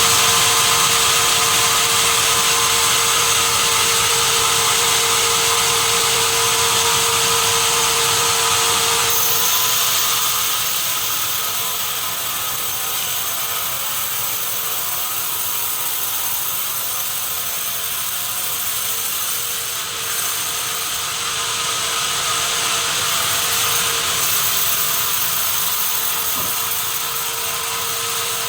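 Sawmill saw running steadily with a high whine over dense noise; the sound shifts and drops slightly about ten seconds in.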